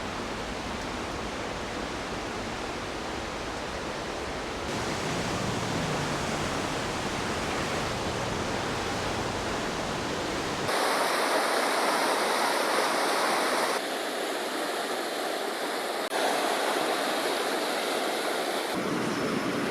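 Rushing river water, a steady rush, with abrupt cuts between several takes. About halfway through, the deep part of the rush drops out and it sounds brighter and closer.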